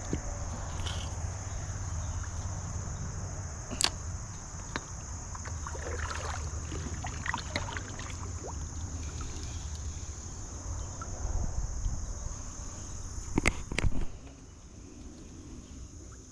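A steady, high-pitched chorus of insects, with a low rumble underneath that drops away near the end and a few sharp knocks, one about four seconds in and a couple near the end.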